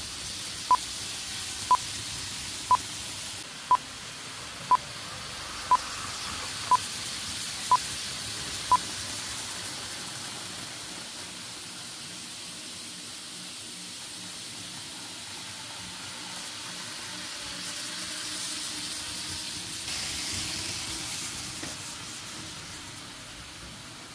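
Nine short electronic beeps, one a second, stopping about nine seconds in, over the steady hiss and whir of N-gauge model trains running on a large layout.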